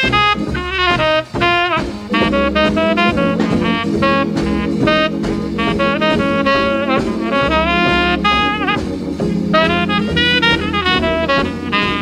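Instrumental R&B playing from a 1955 78 rpm record: a saxophone lead with sliding notes over drums and brass, with steady held chords coming in about two seconds in.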